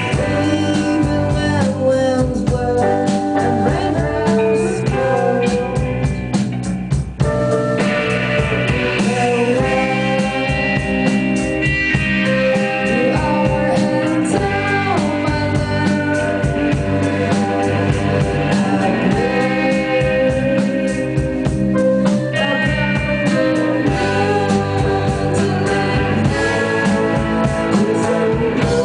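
A live rock band playing, with guitar and drums.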